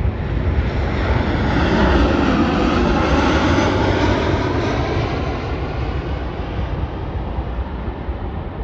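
Airplane passing overhead: its engine noise swells to a peak about two to four seconds in, then slowly fades, over a steady low rumble.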